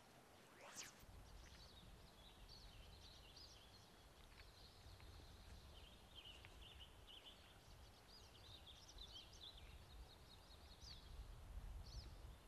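Faint outdoor ambience: small birds chirping and twittering almost continuously, over a low steady rumble.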